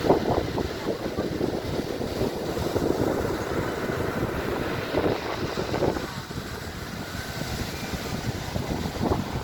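Storm wind buffeting the microphone over rough sea surf: a steady, rough rumble with louder gusts at the start, about halfway through and near the end.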